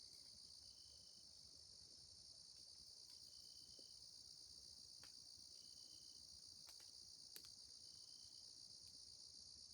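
Faint, steady chorus of crickets and other night insects, a continuous high-pitched drone, with a short high note repeating about every two seconds.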